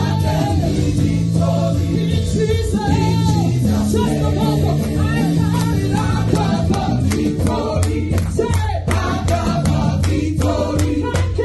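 Gospel worship team singing as a group over instrumental accompaniment, with sustained bass notes and sharp percussion strikes around the middle.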